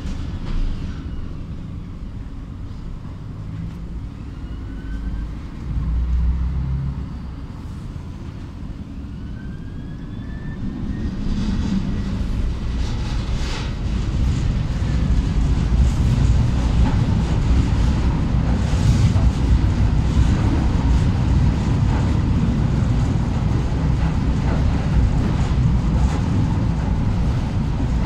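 Bucur V2A-T tram running along the track, heard from inside the passenger cabin: a steady low rumble of wheels on rails, with faint rising motor whines in the first ten seconds. About 11 seconds in it gets louder as the tram picks up speed, with a few clicks and knocks from the running gear.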